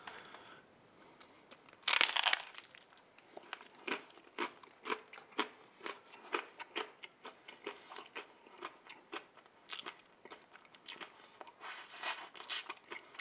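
A crunchy bite into a slice of thin, over-baked spelt-crust pizza about two seconds in, followed by steady crisp chewing. The crackling chews come in quick succession.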